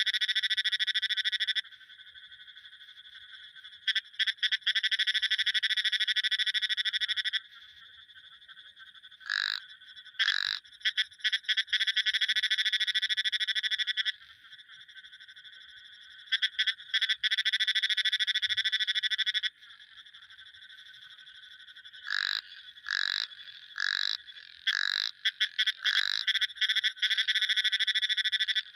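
Frogs calling: rapid pulsed trills lasting a few seconds each, separated by pauses, then near the end a run of short separate calls about one a second. A faint steady high tone runs underneath.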